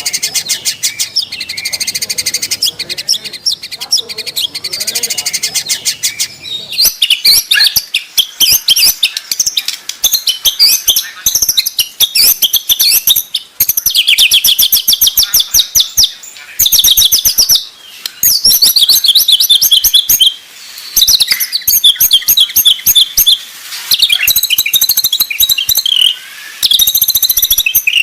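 White-rumped shama (murai batu) singing a fast, varied song of rapid repeated high notes and trills, broken by short pauses. It grows louder and denser after the first few seconds.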